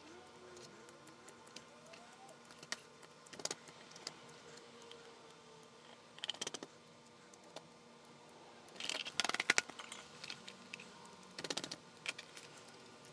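Small scissors snipping loose embroidery threads from a stitched vinyl panel, with handling of the vinyl and its paper backing: four short clusters of quick clicks and rustles with quiet between them, the loudest a little past the middle.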